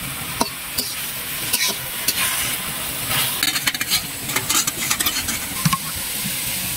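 A fish, potato and Malabar spinach curry simmering in a pan with a steady sizzling hiss, while a spatula stirs and scrapes against the pan in a run of clicks, busiest from about three to six seconds in.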